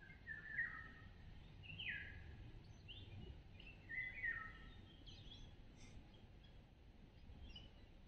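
Songbirds singing in a summer pine wood: a string of short, clear whistled phrases that slide downward in pitch, loudest about half a second in and again around four seconds in, with fainter chirps after. Under them runs a faint steady low rumble.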